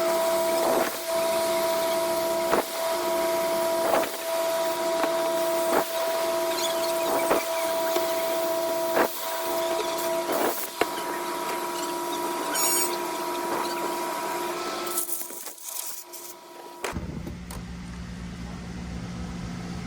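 Steady spray hissing as the transmission control module is sprayed clean, over a steady machine tone with a faint click repeating every second and a half or so; the hiss stops about fifteen seconds in, leaving a low hum.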